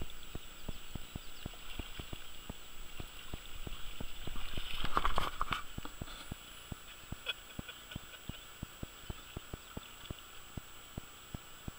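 Fly reel clicking in a steady run of several clicks a second as line is reeled in on a hooked steelhead, over the rush of the river. A louder burst of noise comes about five seconds in.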